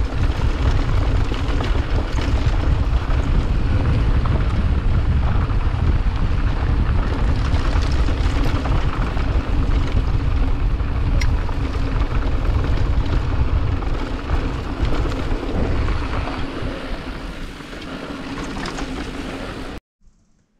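Wind buffeting the microphone of a fast-moving camera: a loud, steady roar with a deep rumble and a few small clicks. It eases a few seconds before the end, then cuts off suddenly.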